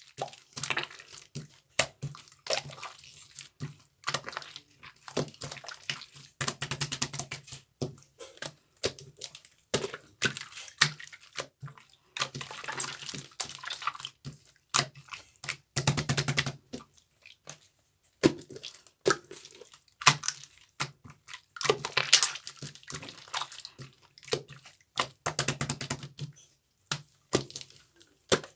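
Slime being squeezed and worked by hand, making irregular wet clicks, pops and squelches.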